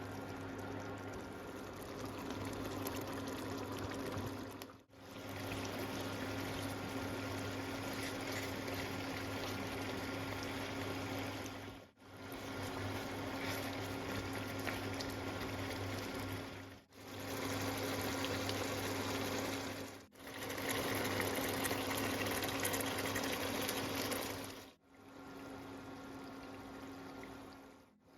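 Mutton pieces cooking in oil and their own juices in a karahi, sizzling and bubbling steadily, with a faint steady low hum underneath. The sound breaks off briefly five times between short clips.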